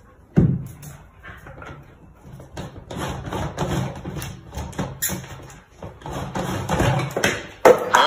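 A cat thuds down onto a wooden stool, then taps and knocks as it paws at and shoves white plastic barrels. There is a louder knock near the end.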